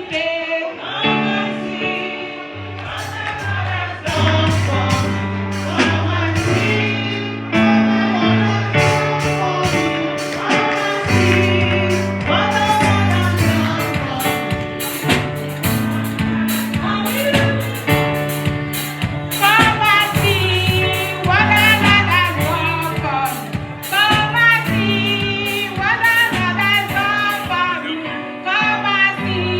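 Gospel worship music: sung vocals over a band with a steady bass line and cymbals.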